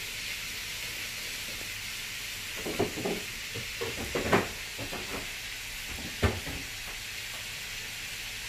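Mackerel skin frying in hot oil in a wok, a steady sizzle, with a few knocks and clatters of a stirring utensil about three to six seconds in.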